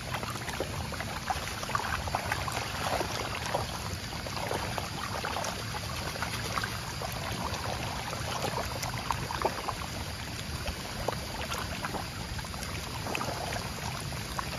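A crowd of catfish thrashing and gulping at the water's surface: continuous wet splashing with many small sharp splashes and slaps.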